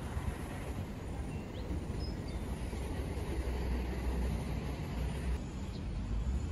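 Steady low rumble of outdoor background noise, with no clear single source; the sound changes abruptly about five seconds in.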